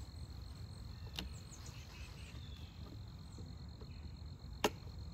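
Outdoor ambience: a steady high insect trill over a low rumble, with a few faint high chirps. Two sharp clicks break in, one about a second in and a louder one near the end.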